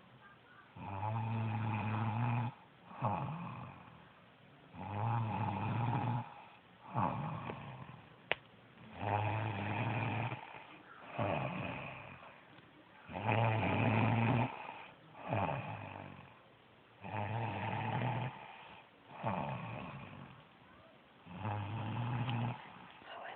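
A sleeping woman snoring loudly and regularly: about six snores, one roughly every four seconds. Each is a long, deep snore followed by a shorter one.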